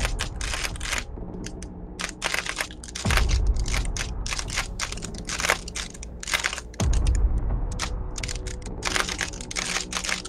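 Rubik's cube being speed-solved by hand: a fast, irregular run of plastic clicks as the layers are turned. A low rumble comes and goes under the clicking.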